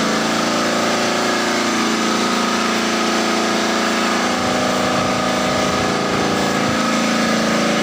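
An engine running steadily at a constant speed, a loud unbroken hum with no change in pitch.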